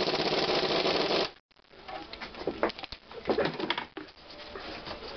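A loud, steady rattling noise for about the first second that cuts off suddenly. Then scattered clicks and short squeaky creaks of metal as the compressed coil spring on a car's front strut is turned by hand to seat it.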